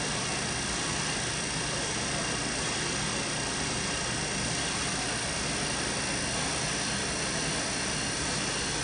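Steady machinery noise from a running wiped-film short path distillation system: an even hiss with several faint, steady high-pitched whines, unchanging throughout.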